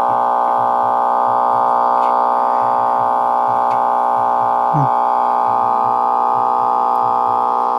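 Music played loudly through a PA horn loudspeaker driven by a small amplifier: one steady, sustained, tone-rich chord with a narrow, mid-range sound and little bass or treble.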